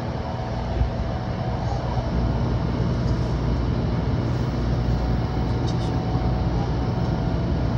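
Tokaido Shinkansen 700 Series train running, heard from inside the car: a steady low rumble with a faint steady tone above it.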